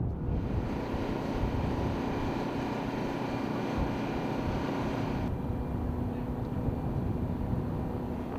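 Steady machinery drone with a held low hum, and wind rumbling on the microphone. The upper hiss drops away sharply about five seconds in.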